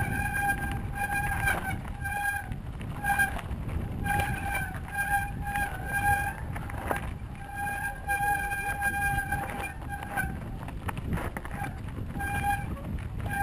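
Mountain bike riding over a rough, rocky trail: steady rumble and wind on the action camera, with a high squeal at one steady pitch that cuts in and out again and again.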